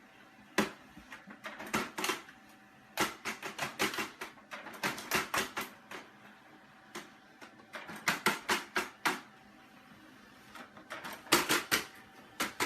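Irregular runs of quick, sharp clicks and taps on a hard surface, coming in clusters with short pauses between them.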